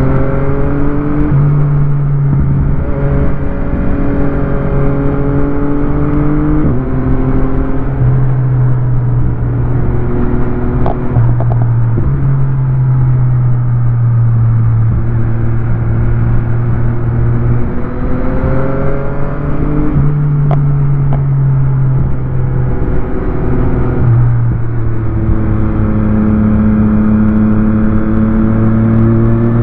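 Motorcycle engine heard from on board while riding. The engine note rises and falls with the throttle, stepping abruptly in pitch several times as gears change, over a steady rush of wind noise.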